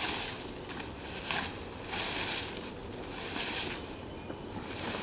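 Rake scraping through dry fallen leaves, a rustling swish about once a second, one stroke after another.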